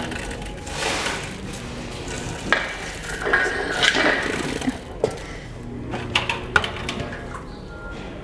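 Industrial wet vacuum sucking up water, a hissing, slurping noise broken by sharp knocks and clatter from the nozzle.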